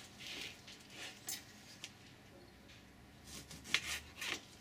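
Scattered short rubbing and scraping sounds with light clicks as a lime is handled and squeezed over a bowl of mashed avocado, the loudest cluster coming about three seconds in.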